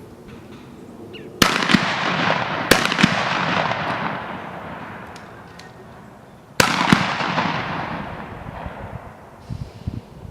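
Two shotgun blasts about five seconds apart, each followed by a long rolling echo that dies away over several seconds. A couple of sharper cracks sound in the tail of the first.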